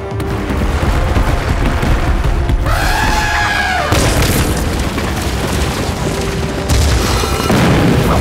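Cartoon elephants trumpeting, one arched call rising then falling about three seconds in, over a deep rumble and background music.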